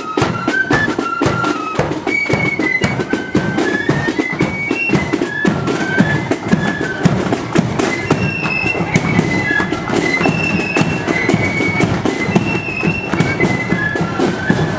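Marching flute band playing a tune: a shrill flute melody over steady, rapid drumbeats from the bass drum and side drums.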